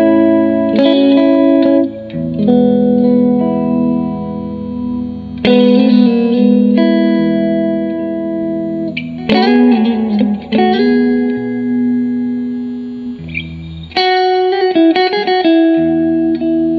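Electric guitar played through a Fender Blues Junior IV all-tube combo amp set for a clean tone: ringing chords that change every second or two, with sharper strummed attacks about five, nine and fourteen seconds in.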